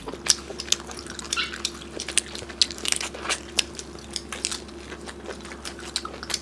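Close-miked eating: biting into and chewing curried chicken and prawns, heard as scattered short, sharp wet clicks and smacks over a faint steady hum.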